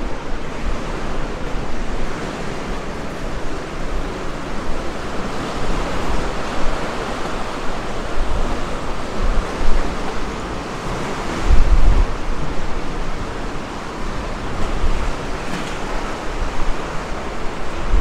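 Sea surf washing steadily onto a sandy beach, with wind buffeting the microphone in low rumbling gusts, the strongest about two thirds of the way in.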